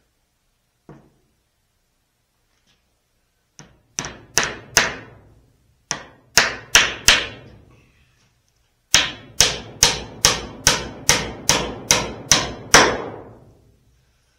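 A hammer driving nails into oak boards: a single light knock, then runs of sharp ringing blows, four, another four, and about ten in quick succession near the end.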